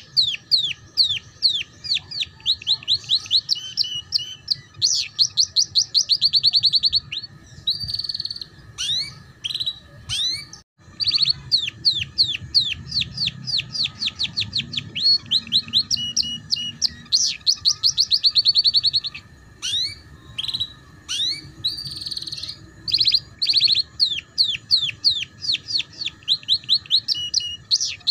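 Domestic canary singing a long, fast trilling song in the ngeriwik style: rows of rapidly repeated notes and quick sweeps that keep changing speed, broken only by a very short gap about ten and a half seconds in.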